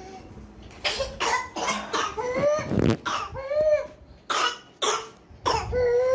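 A fit of harsh, rapid coughing starting about a second in, broken by high-pitched drawn-in breaths that rise and fall like a whoop, the longest near the end. It is a whooping-type cough, which the doctor says mimics whooping cough but is not whooping cough.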